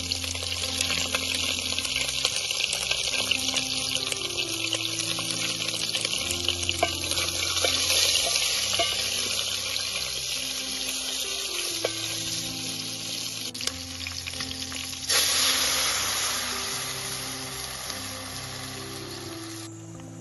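Smoked pork pieces sizzling as they fry in an aluminium pot, stirred with a wooden spatula. A louder, fuller hiss starts suddenly about three-quarters of the way through, then slowly fades. Background music with a slow bass line runs underneath.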